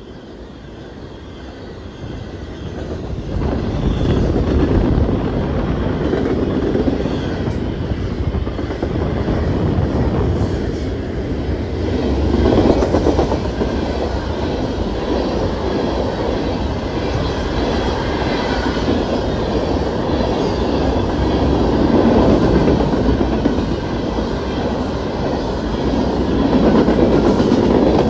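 BNSF freight train of open-top hopper cars rolling past close by: a steady rumble and clatter of steel wheels on the rail. It builds up over the first few seconds, then swells and eases every several seconds as car after car goes by.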